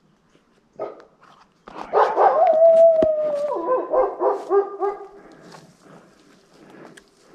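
A wolf howl: a short call, then a held note that falls slightly and breaks into a run of short yips and barks.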